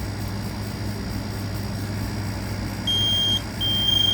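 Kidde KN-COSM-IBA combination smoke and carbon monoxide alarm starting its alarm under test: a high-pitched beep about three seconds in, then a second beep that is still sounding at the end. A steady low hum runs underneath.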